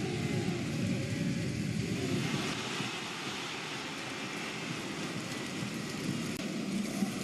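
Football stadium crowd noise: a large crowd's steady hubbub.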